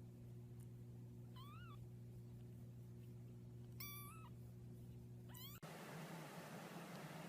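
A cat meowing three times, short and high-pitched, over a steady low electrical hum. The hum cuts off just after the third meow, leaving a faint hiss.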